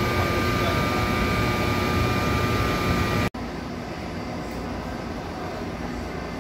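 Korail 8200-class electric locomotive standing with its equipment running: a steady loud hum with several constant whining tones from its cooling blowers and electrics. About halfway through it cuts off abruptly to a quieter, steady background hum.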